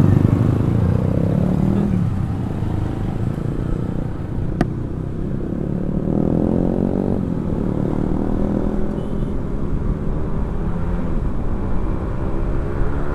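Honda Vario 125 scooter's single-cylinder engine running under way, over a steady low rumble. About six seconds in, an engine note climbs in pitch for about a second as a bike speeds up.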